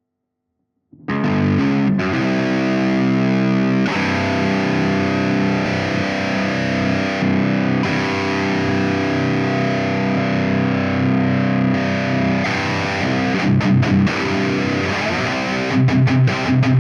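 High-gain distorted electric guitar through a digital EVH 5150 III-style amp emulation, starting after about a second of silence. It plays long ringing chords at first, then short, choppy rhythmic chords from near the three-quarter mark.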